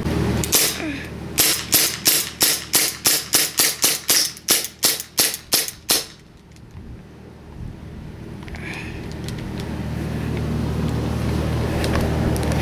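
Airsoft gun shooting: a single shot, then a fast, even string of about fifteen shots at about three a second, which stops about six seconds in. A steady low rumble then grows slowly louder.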